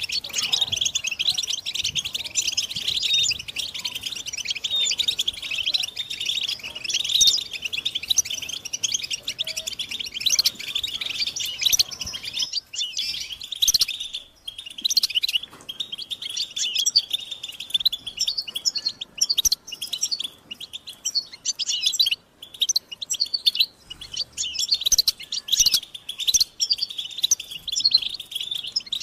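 A group of European goldfinches twittering together in a dense stream of quick, high chirps. After about twelve seconds it thins into separate bursts of twitters with short pauses between them.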